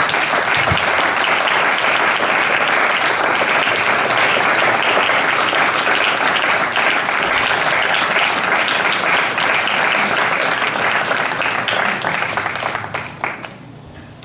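Audience applauding in welcome, dying away about a second before the end.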